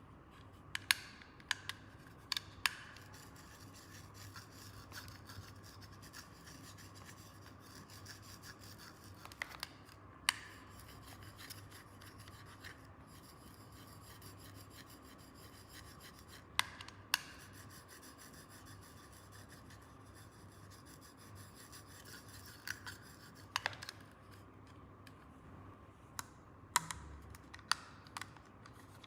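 Small plastic toy pieces being handled and set up: faint rubbing and scraping of plastic, broken by sharp clicks and taps as parts are put down or snapped together, a few in the first seconds and a cluster near the end.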